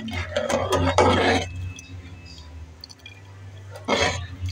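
Metal ladle stirring and scraping wheat rava through boiling water in a metal pot: a stretch of scraping at the start and another brief one near the end, over a steady low hum.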